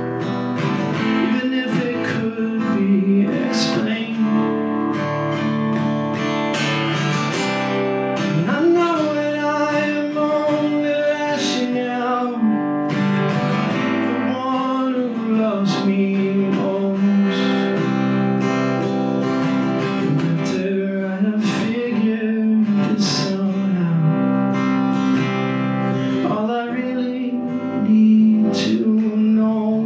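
Acoustic guitar played live, strummed under a melody line that slides and bends between notes.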